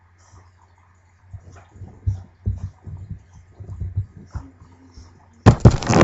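Dog rubbing and rolling on towels right beside the webcam's microphone to dry herself after a bath: soft irregular thumps and cloth rustling over a low steady hum. Near the end, a sudden loud run of knocks and scraping as the webcam is bumped and shifted.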